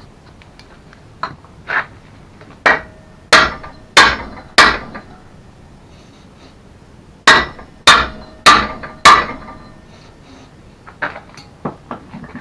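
Hammer blows driving a metal hinge pin into a mobility scooter's rear hinge: a run of about six strikes, a pause, then four more, with lighter taps near the end. Each blow rings briefly with a metallic tone.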